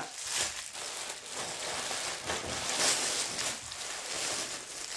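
Packaging rustling and crinkling steadily as the bath mats are handled and unwrapped.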